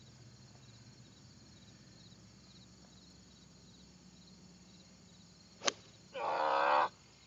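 A golf club striking a ball off the tee: one sharp crack about five and a half seconds in, followed at once by a loud voiced cry lasting under a second. Crickets chirp faintly the whole time.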